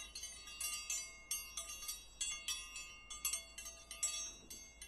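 Tinkling chime sound effect: many high-pitched metallic strikes overlapping, several a second, each ringing on briefly.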